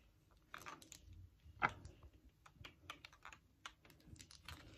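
Faint, irregular small clicks and taps of hands handling small items while filling a sheer drawstring gift bag, with one sharper click about a second and a half in.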